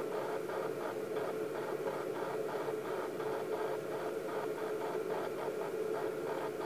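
Steady hiss and static from a video monitor's speaker, even throughout with no distinct sounds standing out.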